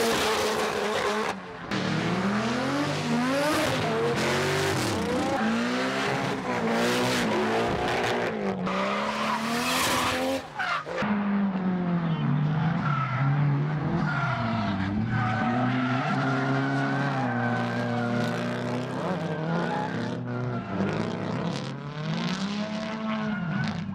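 Drift cars' engines revving up and down over and over as they slide, with tyres squealing and hissing, and two abrupt breaks between passes.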